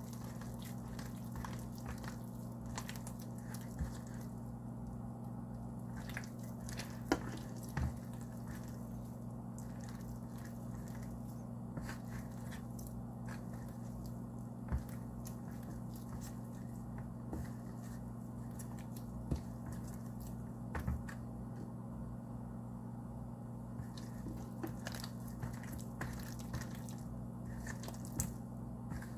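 Hand mixing flour and water into a sticky dough in a plastic bowl: soft squishes and scattered light taps over a steady low hum.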